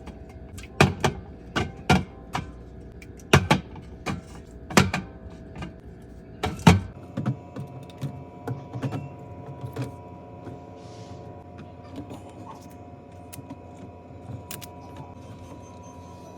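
Drink cans and bottles being handled and set into a refrigerator: a run of sharp knocks and clinks, loud and frequent for the first seven seconds, then lighter and sparser clicks over a faint steady hum.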